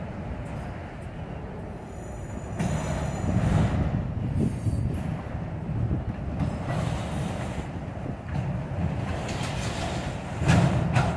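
Freight train of autorack cars rolling past: a steady rumble of steel wheels on rail, growing briefly louder about three seconds in and again near the end.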